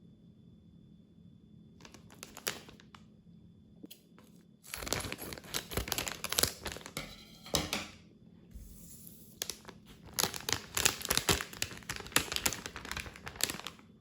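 A snack packet crinkling and being torn open in stretches of dense crackle: briefly about two seconds in, then for about three seconds, then for about four seconds near the end.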